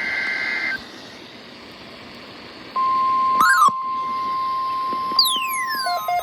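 NOAA Weather Radio alert signals. The end of a SAME data burst, a two-tone digital warble, cuts off under a second in and leaves a couple of seconds of faint static. Then the steady 1050 Hz warning alarm tone starts about three seconds in, with a brief electronic chirp, a falling whistle and, near the end, quick repeated beeps over it.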